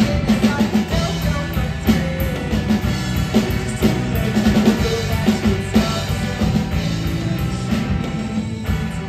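Rock band playing live: drum kit with snare and bass drum hits driving the beat under guitar, bass guitar and keyboard.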